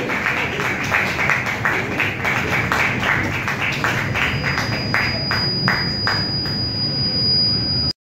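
Audience applauding, the clapping thinning out to a few scattered claps. A steady high tone comes in about halfway, and all sound cuts off abruptly just before the end.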